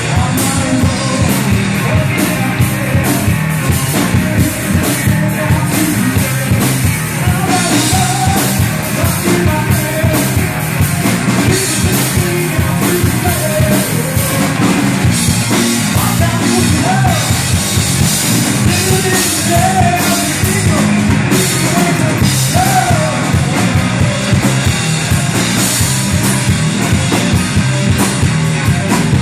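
Live rock band playing loud: Stratocaster-style electric guitar, bass guitar and drum kit, with a man singing into the microphone.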